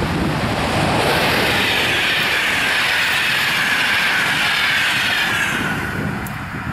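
Passenger train hauled by an electric locomotive passing close by at speed: wheels running on the rails with a loud hissing rail noise that slowly falls in pitch, then fades about a second before the end as the last coaches go by.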